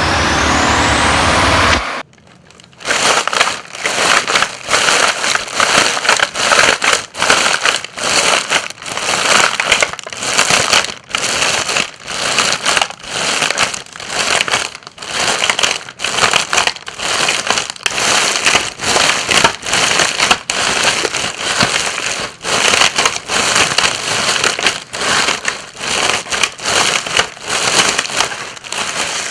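Footsteps crunching through dry fallen leaves at a steady walking pace, about one and a half steps a second. They begin about three seconds in, after a rising whoosh that cuts off suddenly about two seconds in.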